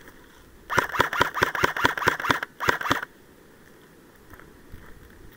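Airsoft gun firing a quick string of shots, about a dozen in under two seconds, then a short break and two or three more.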